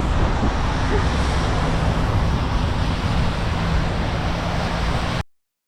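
Wind blowing across the microphone: a steady rushing noise with heavy low rumble, which stops abruptly near the end.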